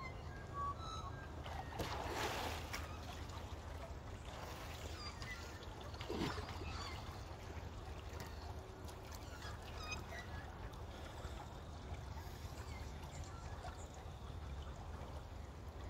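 Water splashing and sloshing as a swimmer hauls himself out of a river onto a wooden jetty, with two louder splashes about 2 and 6 seconds in, over a steady low rumble. A few short bird chirps sound near the start.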